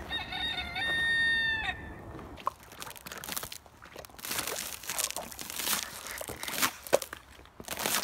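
A rooster crows once, a long, steady call that drops in pitch at the end. Footsteps then crunch on icy, crusted snow, irregular sharp crunches through the rest of the clip.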